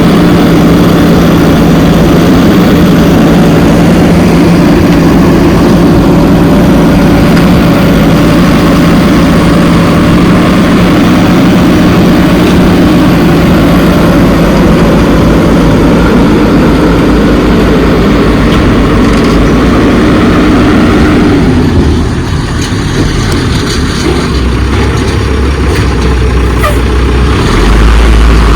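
A motor running at a steady pitch, with a steady hum, until a change about three-quarters of the way through to a lower, deeper rumble.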